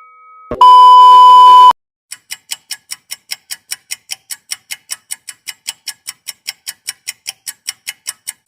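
A loud, steady electronic beep lasting about a second, then a clock ticking evenly at about four ticks a second.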